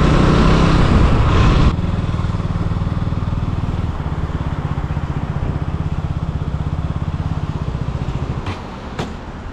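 Motorcycle engine running under wind rush while riding. The wind noise cuts off suddenly a couple of seconds in, leaving the engine idling with a steady low pulse, which goes quieter near the end.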